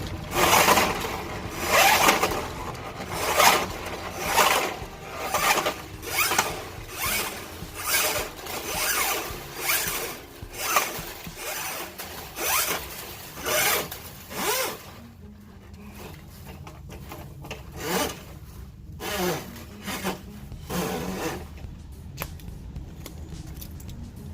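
5/16-inch steel drain-snake cable being pulled hand over hand out of a Milwaukee Switch Pack drum, each pull a scraping rasp of the coiled cable against the drum, about one a second. The pulls stop for a few seconds past the middle, then a few more follow, some with a short squeak.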